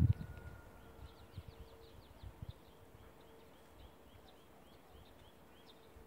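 Small birds chirping in a quick run of short, high, falling notes, about three or four a second. A low rumble on the microphone at the start is the loudest sound, with a few softer low knocks soon after.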